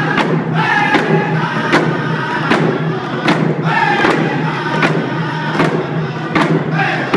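Round dance song: a group of singers chanting in high voices over a steady drum beat, a little more than one beat a second.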